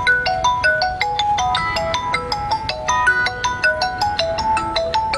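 Mobile phone ringing with a melodic ringtone, a quick repeating tune of short bright notes. This is the incoming call that a motorbike's GPS smart-lock tracker places to the owner's phone when the locked bike is disturbed.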